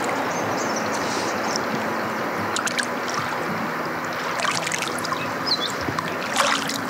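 River current rushing steadily, with a few small splashes and drips of water close by.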